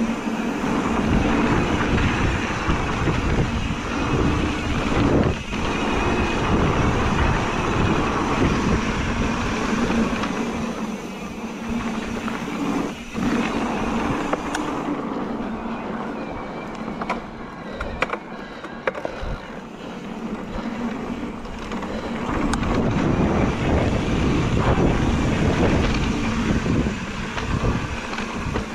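Electric mountain bike ridden along a dirt singletrack: wind rushing over the microphone and tyres running on dirt, with a few sharp knocks from the bike over bumps.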